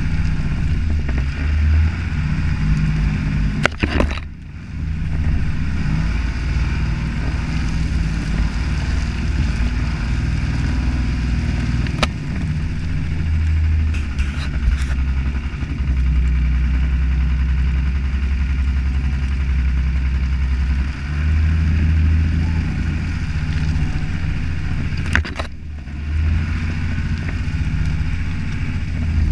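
Toyota Land Cruiser HJ61's 12H-T turbo-diesel straight-six running steadily at low speed, heard from beside the front wheel as the tyres work along a muddy track. There are brief knocks about four seconds in and again near the end.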